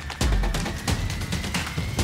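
Soundtrack-style background music with a deep bass beat and quick percussive ticks.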